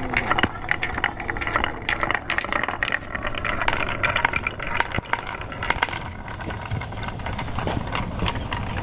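Many marbles rolling down carved wooden tracks, a steady rolling rumble with rapid clicks and clacks as they knock against the wooden walls and each other.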